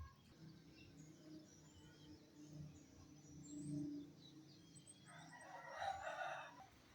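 A rooster crowing once, about five seconds in, with faint bird chirps before it.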